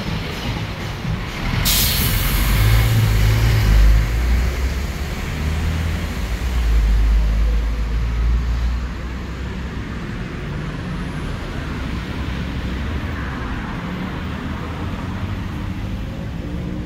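Street traffic with a heavy diesel vehicle: its air brakes let out a sharp hiss about two seconds in, then its engine rumbles low for several seconds before fading into steady traffic noise.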